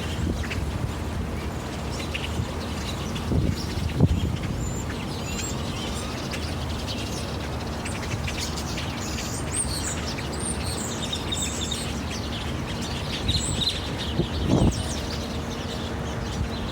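Birds chirping and calling in many short, high, overlapping notes and quick slurred whistles, busiest in the middle, over a steady outdoor background noise. A few low thumps, the loudest about four seconds in.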